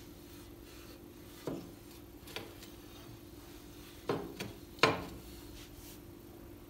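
Cloth wiping the glass door of a cast-iron stove, with five sharp knocks on the door, the loudest near the end. A steady low hum runs underneath.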